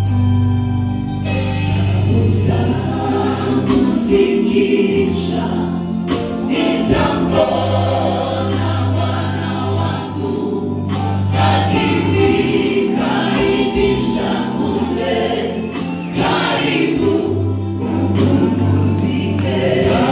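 Gospel choir of men and women singing into microphones with a live band, steady low bass notes underneath the voices.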